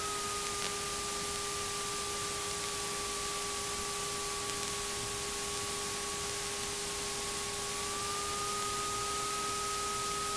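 Steady hiss of an aircraft radio and intercom feed with no transmission on it, over a constant hum tone and a thin whistle that drifts slightly lower and then rises again near the end.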